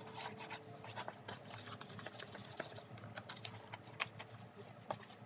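A cloth rubbing and scrubbing over a white sneaker, heard as faint scratching with a scatter of small clicks and taps as the shoe is handled and turned.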